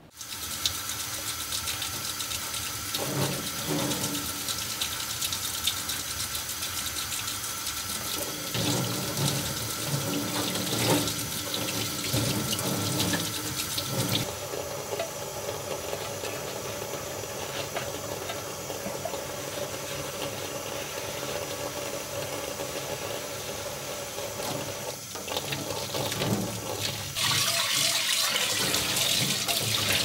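Kitchen tap turned on and running into a steel sink while a metal pot is rinsed under the stream. The splashing shifts as the pot is moved, and grows louder near the end.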